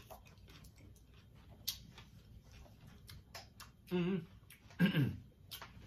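Scattered small clicks and smacks of people eating and handling food at a table, with two brief vocal murmurs about four and five seconds in.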